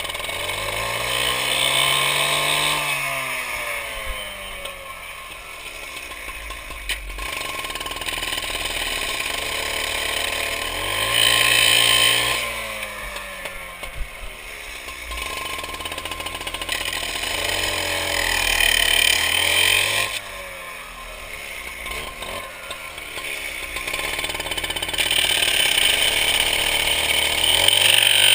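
Husqvarna two-stroke cut-off saw revved to full speed about four times, each time winding back down toward idle in between. A harsh hiss rides on top at full speed.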